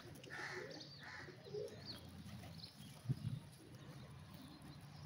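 A flock of rock pigeons cooing, with a few higher bird chirps and a short thump about three seconds in.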